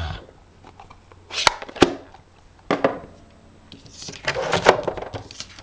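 Hinged plastic lid of a stamp ink pad snapping shut with two sharp clicks, followed by a few knocks and a rustling clatter of craft supplies handled on a table.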